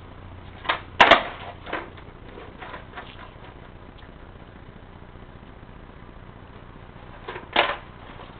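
A few sharp knocks or clacks, the loudest about a second in and another near the end, over a low steady background.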